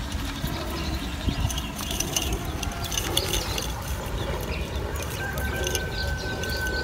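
Wind rumbling on the microphone, with birds chirping and small clicks and rattles of a fishing net and its weighted line paying out through a hand.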